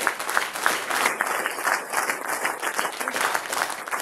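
A roomful of guests applauding: many hands clapping together.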